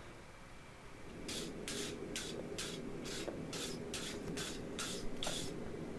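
Steel wire brush scrubbed back and forth over red-hot leaf-spring steel on the anvil, knocking off forge scale: about ten quick scraping strokes, some two and a half a second, starting about a second in.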